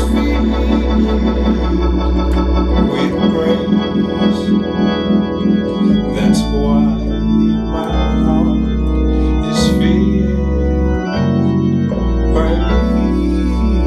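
Hammond organ playing a repeating gospel chord vamp: sustained full chords over a deep bass, the harmony and bass note changing every two to three seconds, with a few short clicks along the way.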